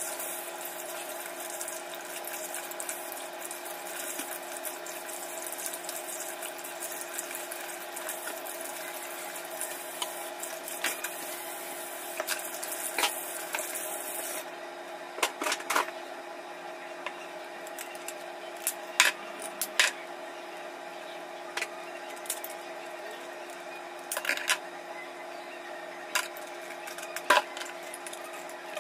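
Kitchen tap running into a sink with water splashing over hands, shutting off suddenly about halfway through. Scattered light clicks and knocks follow as a raw crab is handled at the sink.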